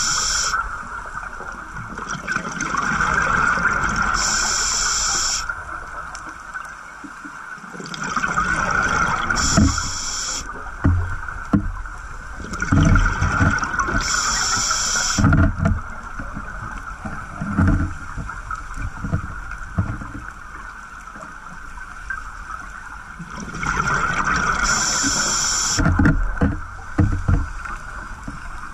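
Scuba diver's regulator breathing underwater: about five long hissing inhalations a few seconds apart, with bubbling, gurgling exhalations and low thumps between them.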